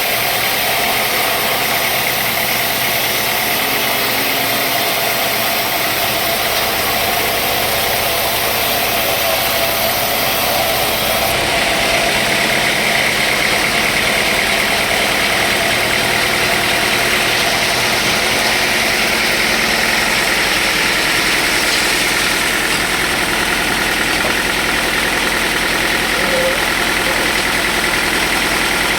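Sawmill machinery running steadily: a continuous engine-like drone with a hiss over it.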